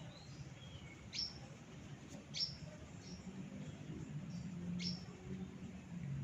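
Small birds chirping: three short, sharp chirps with a few fainter ones between, over a low steady hum.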